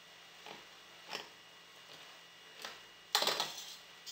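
Metal utensil scraping and clinking against the inside of a stainless steel pot as cooked rice is stirred: a few short, soft scrapes, with a louder one about three seconds in.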